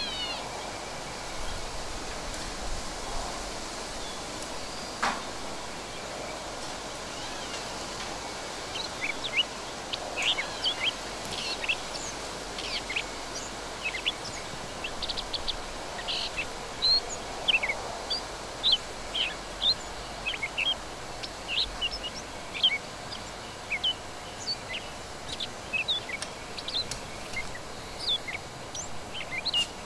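Birds chirping: many short, quick high calls, sparse at first and coming thick and fast from about nine seconds in, over a steady outdoor background hiss.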